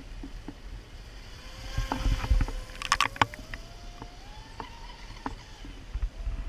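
RC model boat's motor whining, the thin tone rising slowly in pitch as it speeds up, over a low rumble. A cluster of sharp clicks and knocks, the loudest sounds, comes about two to three seconds in.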